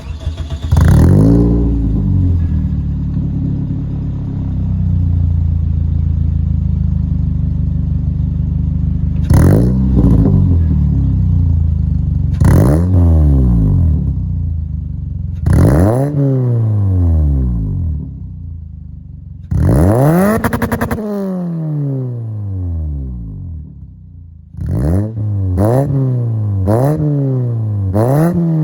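Toyota 1ZZ-FE four-cylinder engine with short ram intake, cat-deleted exhaust and resonators only, starting about half a second in and idling, then revved repeatedly: several single revs that rise fast and fall back to idle, one that stutters briefly at the top, and a quick run of short blips near the end.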